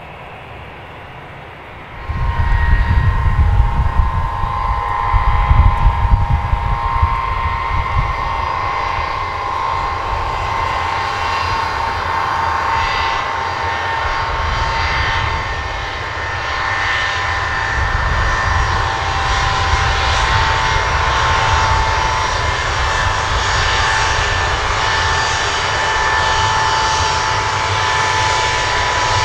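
Jet engines of an Il-76LL testbed, one of them a PD-14 turbofan, running as the four-engined transport rolls along the runway. A steady high whine sits over a deep rumble. The sound comes in suddenly about two seconds in, and the rumble is heaviest for several seconds after that.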